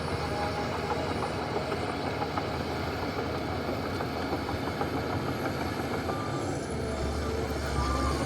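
Heavy diesel earthmoving machinery running steadily, with the low engine note swelling about seven seconds in. A few short high squeals come in near the end.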